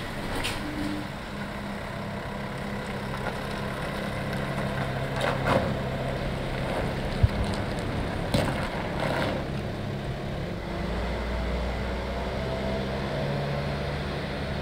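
Van engine running as the van drives off slowly: a steady low engine hum that turns into a deeper rumble about ten seconds in, with one sharp knock about halfway through.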